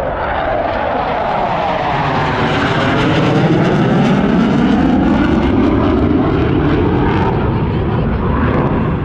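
Two U.S. Air Force Thunderbirds F-16 fighter jets passing overhead. A loud jet roar swells to its peak about halfway through and then eases off, with the pitch sweeping as they go by.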